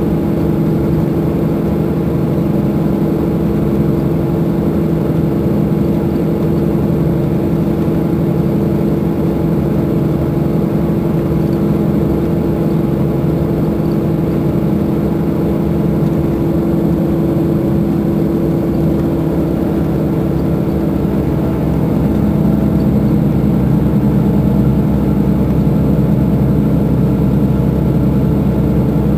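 Euro 5 diesel engine of a Mercedes-Benz Intouro coach idling steadily while the bus stands at a stop. It grows a little louder about three-quarters of the way through.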